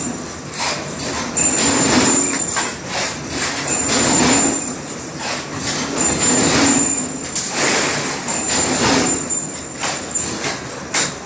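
Pipe bending machine working a steel tube around its round die, with metal scraping and clanking that swells every second or two over a steady mechanical din and a thin high whine that comes and goes.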